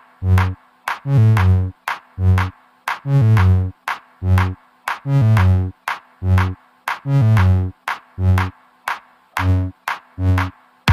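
Background electronic music with a steady drum-machine beat, about two beats a second, and synthesizer notes.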